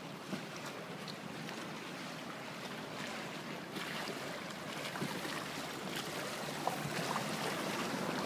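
Canal water sloshing against a gliding gondola's hull, a steady wash of noise with a few faint clicks and knocks.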